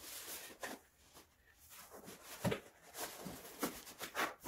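Faint rustling with a few short, irregular taps and knocks as the padded head cushion of an Abko Hacker gaming chair is handled and set onto the chair's backrest.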